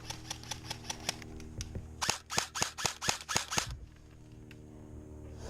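Airsoft guns firing rapid semi-auto shots, about five a second: a faint string of shots first, then a louder run of about nine shots from about two seconds in.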